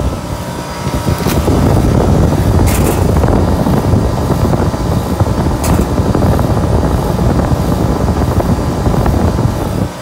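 Freezer's refrigeration condensing unit running close up: compressor and condenser fan making a steady, loud, low rumble, with a few light clicks.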